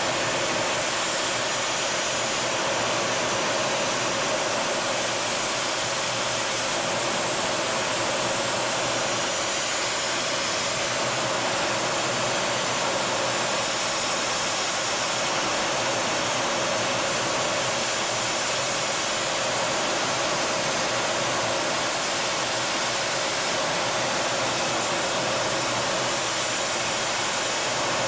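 Steady rushing noise of a Kfir fighter jet in flight, heard inside the cockpit, with no change in level or pitch.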